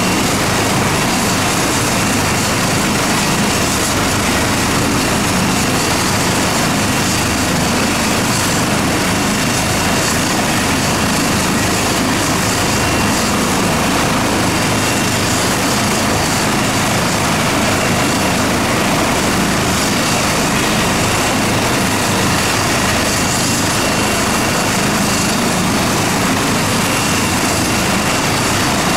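Airbus H135 trauma helicopter running on the ground with its main rotor turning. Its steady turbine and rotor noise carries a few thin, high whining tones and does not change.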